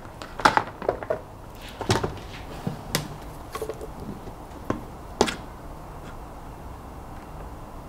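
Scattered clicks and taps of a UV LED strip and red test-lead wires being handled and clipped together on a workbench, about six sharp ones in the first five seconds, then only faint room tone.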